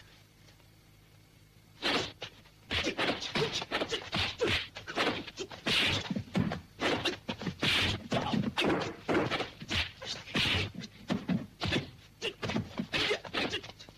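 Kung fu film fight sound effects: a rapid run of punch and kick hits, several a second, starting about two seconds in after a near-quiet moment.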